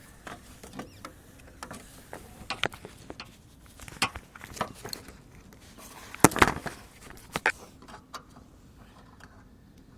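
Scattered light knocks and clicks, irregularly spaced, with a louder clatter a little past six seconds in.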